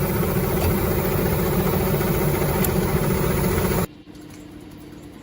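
A machine's engine running steadily with a constant low hum. About four seconds in it cuts off abruptly, leaving a much quieter steady engine hum.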